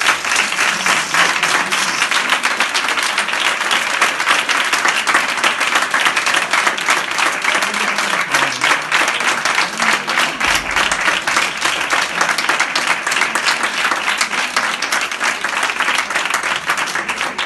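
A group of people applauding: loud, dense hand-clapping.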